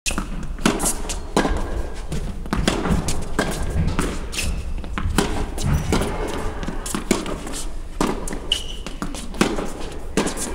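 Tennis rally in a large indoor hall: racquet strikes and ball bounces echoing, with footsteps and a few brief shoe squeaks on the court.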